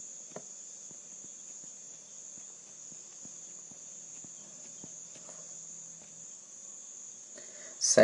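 A steady high-pitched whine runs throughout, with faint light ticks of a pen stylus on a tablet as a word is handwritten.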